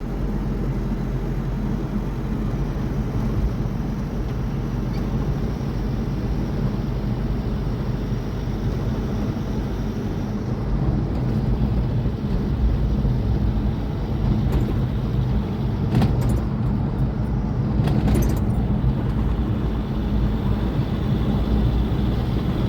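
Motor vehicle running on the road, its steady engine hum and road noise heard while riding. A few sharp knocks and rattles come in the second half.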